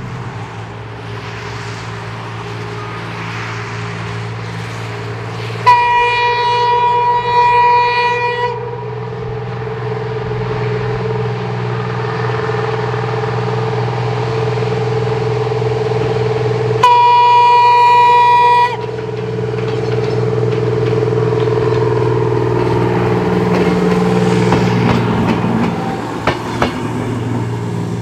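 Diesel-electric rail motor 63RM, powered by two Detroit Diesel 6-71 engines, running steadily as it approaches and sounding its horn twice: a long single-note blast about six seconds in and a shorter one about seventeen seconds in. The diesel engine note grows louder in the second half as the rail motor draws nearer.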